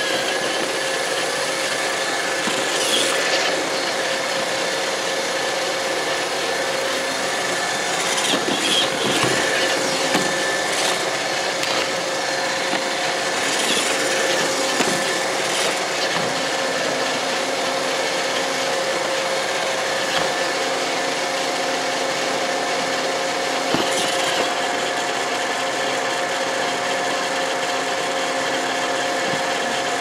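iRobot Roomba 650 robot vacuum running on a hardwood floor: a steady motor whine over the hiss of its brushes and suction, with a few brief knocks. A second, higher whine joins about two-thirds of the way through.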